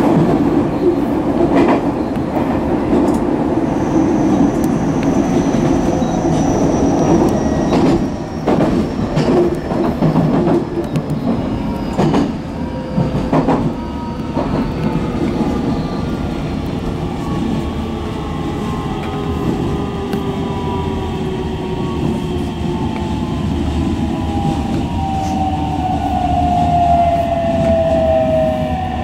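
Electric train of the Aichi Loop Railway running on the rails, heard from the cab: a steady rumble with a few sharp clicks of the wheels over rail joints. Then several whining tones from the traction motors fall slowly in pitch as the train slows.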